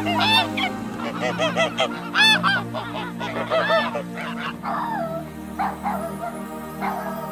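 A flock of white domestic geese honking over and over, many overlapping calls, over soft background music. About four and a half seconds in the honking gives way to a few short calls from a dog.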